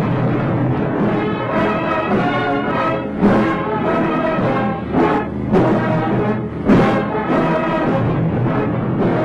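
Orchestral march music with brass, punctuated every second or two by loud drum strikes.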